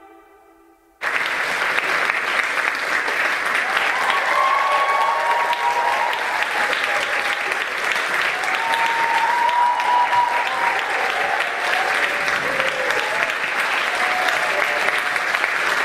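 The last of the music dies away, then an audience applauds, starting suddenly about a second in, with a few cheers rising over the clapping, and cuts off abruptly at the end.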